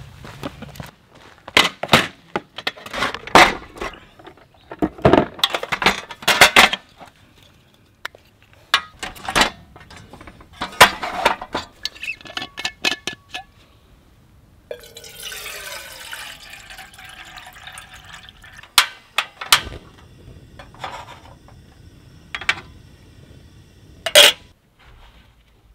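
Clatter and clinks of a portable camp stove and small metal kettle being handled and set up. About halfway through, water is poured from a bottle into the kettle for around three seconds. A sharp clink near the end as the kettle lid is pressed on.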